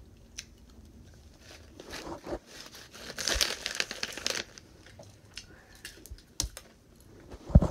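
Foil-lined Snyder's snack bag crinkling in bursts as a hand handles and reaches into it, densest about three to four seconds in, with a few sharp crackles near the end.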